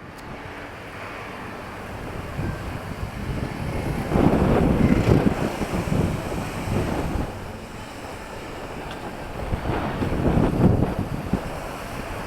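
Street ambience: a steady wash of noise, with wind on the microphone, that swells loudly twice, about four seconds in and again about ten seconds in.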